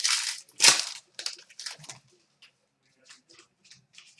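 Trading cards being handled and flipped through. There are two loud rustles in the first second, then a run of short, quieter flicks, about three a second.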